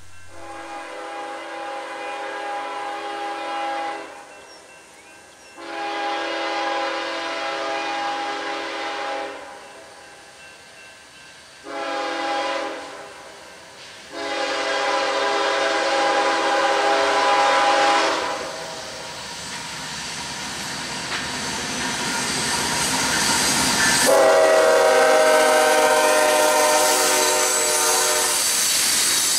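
Air horn of a CSX freight locomotive sounding the grade-crossing signal: long, long, short, long. About 24 seconds in it sounds again over the rising rush and rattle of the locomotives and hopper cars rolling past.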